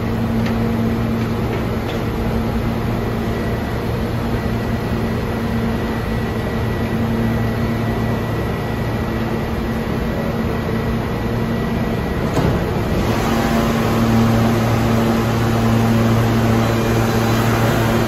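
New York City subway train standing at the platform, its equipment giving a steady hum with a faint high whine. About twelve seconds in there is a clunk, then a louder rumble of rail movement builds.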